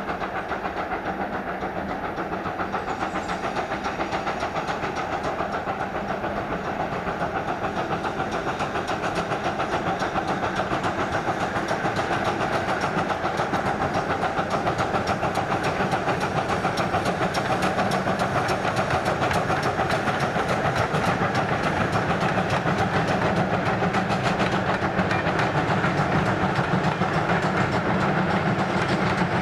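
Steam locomotive working a train, growing steadily louder as it approaches.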